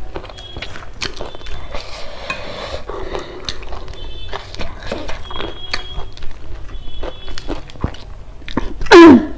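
Fingers mixing rice and curry on a steel plate, with many small clicks and taps of food and hands against the metal. About nine seconds in, a short loud sound falls steeply in pitch.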